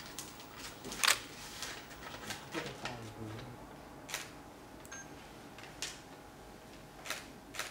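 Paper bag and plastic wrapper being handled: irregular sharp crinkles and clicks, the loudest about a second in, as a wrapped pastry is bagged and the bag folded shut and sealed with a sticker.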